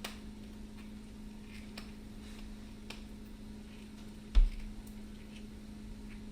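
Scattered light ticks and taps of seasoning containers being handled, and one heavy low thump about four seconds in, over a steady low hum.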